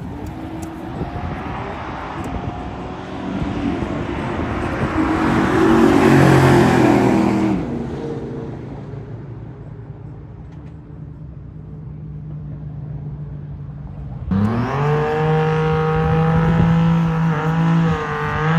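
Drag-racing car's engine under full throttle on a pass, growing louder and climbing in pitch for about seven seconds, then dropping off suddenly to a faint, distant engine. About fourteen seconds in, another car's engine revs up sharply and holds at high revs during a burnout.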